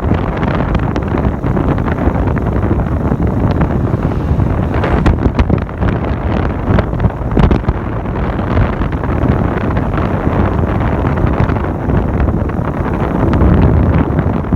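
Wind blowing across the microphone, loud and gusty.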